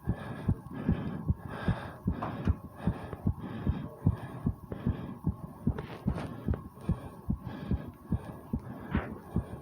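Human heartbeat heard up close, beating fast and regularly in quick lub-dub pairs, raised from exercise just finished (20 squats).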